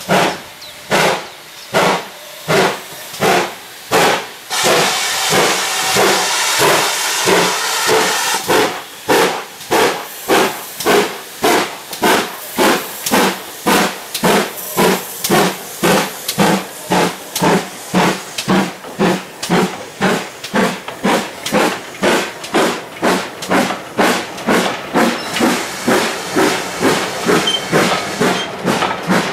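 GWR 'Manor' class two-cylinder 4-6-0 steam locomotive 7812 'Erlestoke Manor' starting away with a train, its chuffing exhaust beats quickening steadily as it accelerates. Steam hisses strongly for a few seconds early in the pull-away.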